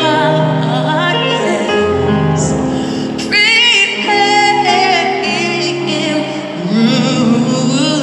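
Live gospel-style singing: a choir holds chords under a woman's solo voice, which wavers with wide vibrato and climbs high about three seconds in.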